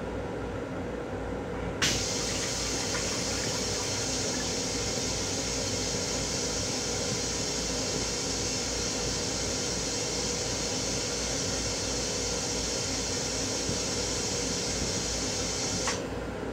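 Water running steadily in a Metro-North M7 railcar restroom fixture, switched on with a click about two seconds in and cut off with a click near the end, over a low steady rumble.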